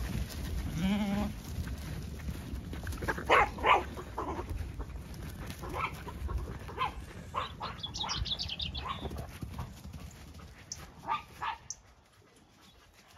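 A Zwartbles sheep bleats once about a second in, then herding dogs bark several times, sharpest in a pair about three seconds in, as the flock is driven along.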